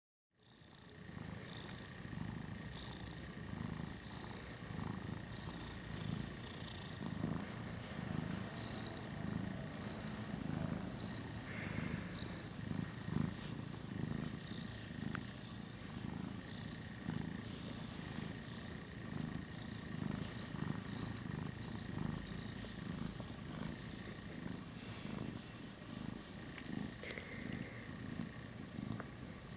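Russian Blue cat purring steadily, a low pulsing rumble, while its belly and chest are massaged by hand.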